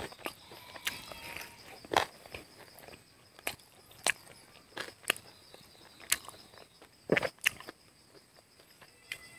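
Close-miked chewing and lip-smacking while eating chicken and rice by hand: irregular sharp smacks and clicks, about one every half second to second. A steady high insect drone runs underneath.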